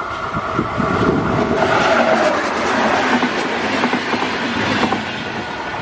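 An electric multiple-unit passenger train passing close at speed. The rush of wheels on rail and air builds to a peak about two seconds in and then eases, and a whine drops slightly in pitch as the train goes by.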